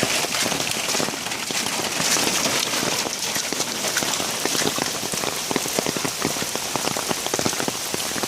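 Heavy rain falling steadily, with many drops striking close by as sharp little taps.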